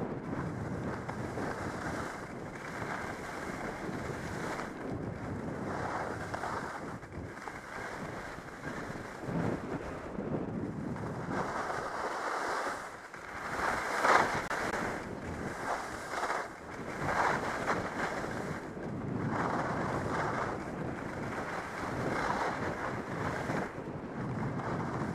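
Wind buffeting the microphone and skis sliding and scraping over snow on a downhill run. The noise rises and falls in repeated swells, loudest about fourteen seconds in.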